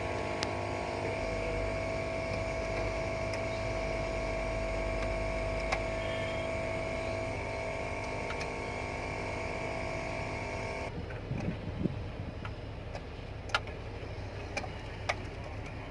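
Kobelco 850 excavator machinery running steadily: a constant hum with steady whining tones over it. About eleven seconds in, the sound changes abruptly to a duller hum with a few light clicks.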